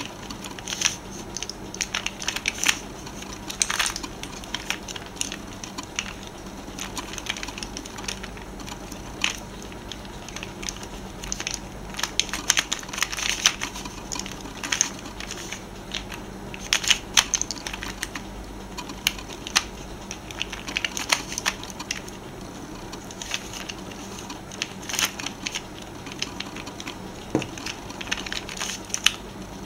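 Plastic Pyraminx (triangular pyramid twisty puzzle) being turned by hand: irregular clicks and clacks as its layers and tips rotate, coming in quick clusters with short pauses between.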